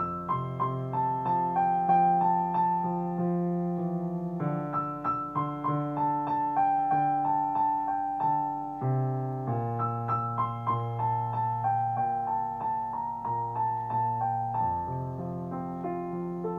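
Relaxing piano music: a melody of repeated notes over held chords, the harmony changing every four to five seconds.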